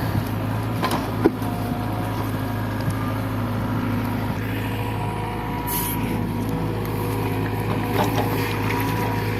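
JCB 3DX backhoe loader's diesel engine running steadily, with a sharp knock about a second in and a brief hiss around the middle.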